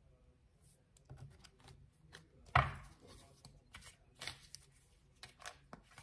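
Cards being handled and laid on the table: a string of light taps and clicks, with one louder thump about two and a half seconds in.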